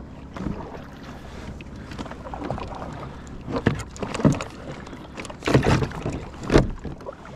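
Water splashing and slapping against a kayak's hull, with wind on the microphone, in irregular surges that are loudest from about three and a half seconds in.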